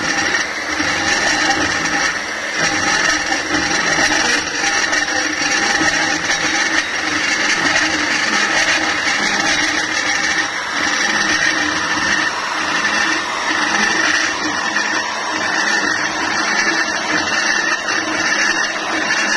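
MAB 1300 magnetic drilling machine running steadily under load, its 255 mm cutter cutting a hole through the wall of a pipe.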